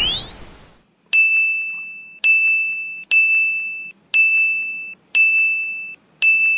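Logo-animation sound effects: a rising sweep tone fades out in the first second, then six short bell-like dings, about one a second, each a single high ringing tone that starts sharply and dies away, one for each letter of the logo as it appears.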